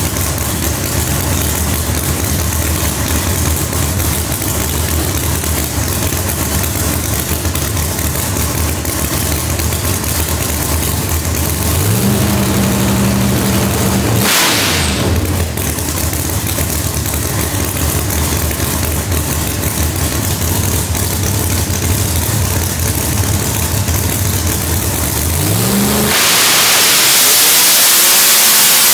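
A ProCharger-supercharged 565 ci Noonan Hemi V8 drag engine running on a hub dyno. It idles with a lumpy note. About twelve seconds in it revs briefly, holds for about two seconds, then drops back with a short rush of noise. Near the end it makes a loud full-throttle pull through the gears that climbs fast and then cuts off.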